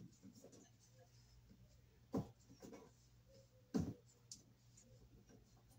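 Black vinyl electrical tape being pulled off the roll and wrapped around a white wire, marking it as a live conductor: two short, sharp pulls of the tape about two and four seconds in, with fainter rustles between.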